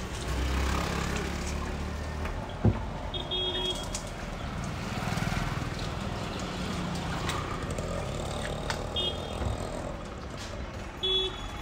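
Street traffic ambience: a steady rumble of vehicles with a few short, high beeps scattered through it and one sharp click about a quarter of the way in.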